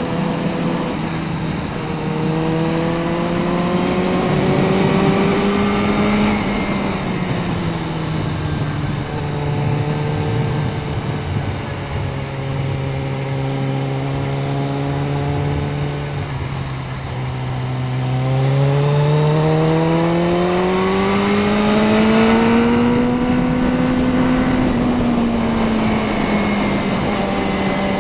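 Suzuki Bandit 650N's inline-four engine pulling while the motorcycle is ridden: its note rises about two seconds in, eases back, holds steady, then climbs again from about seventeen seconds before settling. A steady hiss of wind and road noise runs beneath it.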